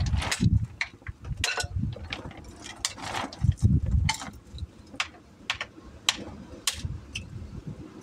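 Irregular knocks, clicks and scrapes of tools or materials being handled, with heavier low thumps near the start and again about three and a half seconds in.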